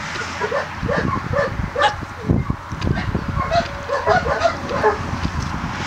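Dogs at rough play: many short barks and yips in quick succession.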